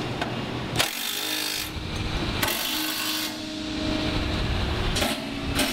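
Cordless driver with a socket running in short bursts, tightening the beam mounting clips that hold the C-track support arms to the crane girder's flange. The loudest bursts come about a second in and again about two and a half seconds in.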